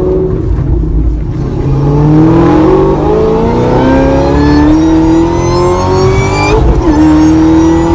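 Supercharged ZL1 Camaro V8 accelerating, with a loud supercharger whine over the engine note, fitted with a whine enhancement kit. The pitch climbs for about five seconds, then drops at a gear change near the end and holds steady.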